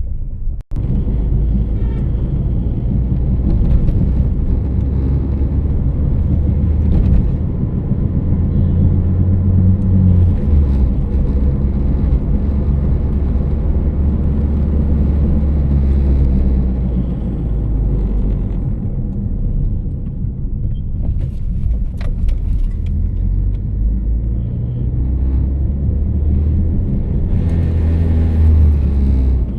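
Loud, steady low humming rumble that swells and eases slightly, with no clear rhythm.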